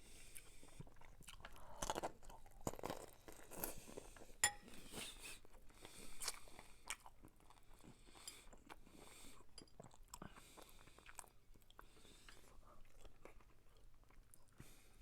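Close-miked chewing of ramen with tuna: a string of small wet clicks and crunches, busier in the first half, with one sharp click about four and a half seconds in.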